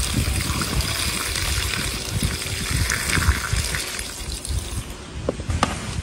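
Running water splashing into a steel pot as it is filled, dying away about four and a half seconds in, followed by a few light knocks.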